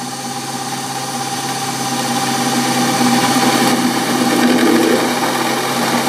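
NOVA Voyager drill press running at about 1,000 rpm, its Norseman Vortex Point step drill bit cutting into a hard steel bar. A steady motor hum sits under the scratchy noise of the cut, which grows louder over the first few seconds as the bit bites in.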